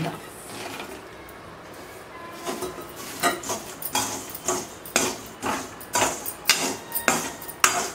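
Perforated steel ladle stirring peanuts through hot sand in a steel kadai, dry-roasting them: repeated scraping and clinking of metal on the pan, about twice a second, starting a couple of seconds in.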